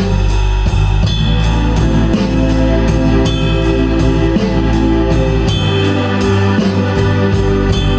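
Live blues-rock band playing an instrumental passage: drum kit keeping a steady beat under electric guitar and bass.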